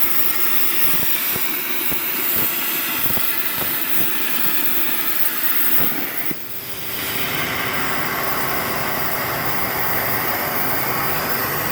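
CNC plasma cutter cutting 4 mm steel plate: a loud, steady hiss from the plasma arc and air jet, with crackling in the first half. The sound drops off briefly about six seconds in, then resumes more evenly.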